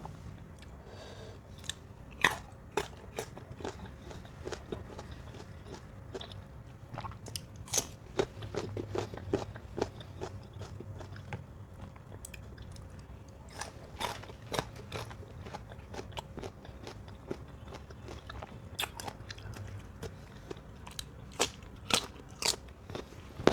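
Close-up crunching and chewing of mango slices: clusters of sharp, crisp bites and chews with short pauses between mouthfuls.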